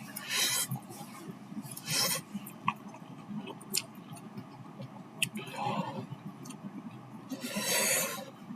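Someone eating noodles: three short, hissy slurps, the last and longest near the end, with light clicks scattered between them.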